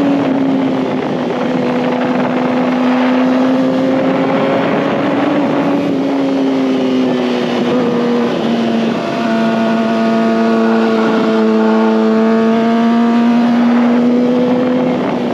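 2019 Kawasaki ZX-6R's 636 cc inline-four engine running under way at fairly steady revs, with a heavy rush of wind and road noise. The engine pitch eases down a little midway and then holds steady.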